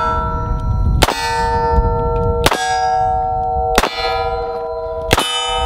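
Four shots from a Ruger LCR X revolver, about a second and a half apart. Each is followed by a struck steel target plate ringing with several clear tones for a second or more, the sign of a hit. Ringing from a shot just before carries in at the start.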